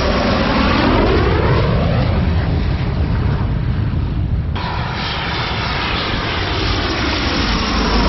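Dassault Mirage F1's SNECMA Atar turbojet on short final with gear down, passing low overhead: loud, steady jet noise with sweeping tones as it goes over. About four and a half seconds in, the sound cuts abruptly to another approach, which grows again as the next pass comes overhead.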